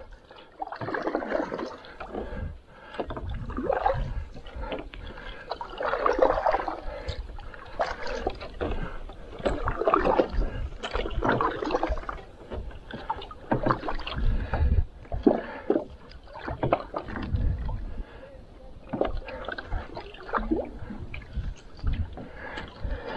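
Wooden canoe paddle pulling through lake water in repeated strokes, each with a swirl and splash of water, every two seconds or so.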